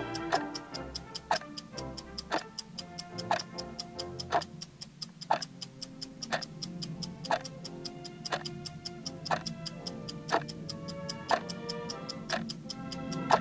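Countdown-timer clock ticking: a louder tick about once a second, with lighter, quicker ticks about four a second between them. Music plays softly underneath.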